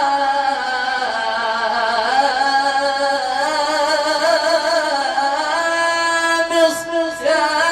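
A male munshid chanting an Egyptian religious ibtihal, drawing out the word "yā" in one long, wavering melisma that moves through several pitches before reaching "Miṣr" near the end.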